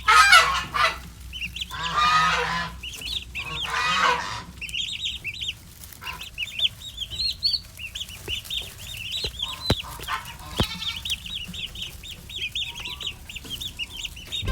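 Chickens calling: three loud, harsh squawks in the first four seconds, then a steady run of many short, high peeps, like a brood of chicks peeping. Two sharp clicks come in the middle.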